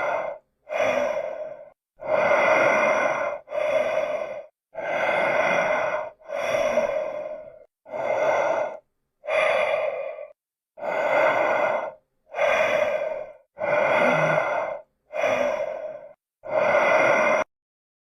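Michael Myers-style heavy breathing: about thirteen slow, loud breaths, roughly one every second and a bit, each followed by a short dead-silent gap.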